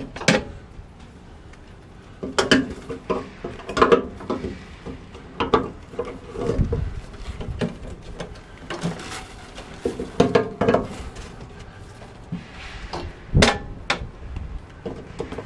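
Metal gladhand couplings and coiled air lines of a tractor-trailer knocking and clinking irregularly as they are unhooked from the trailer and hung up on the truck. A sharp knock near the end is the loudest.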